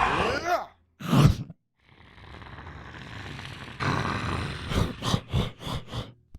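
Fight sound effects made with a person's voice and body: a cry that trails off, a single hard hit about a second in, a breathy rushing noise, then a quick run of hits, about three a second, near the end.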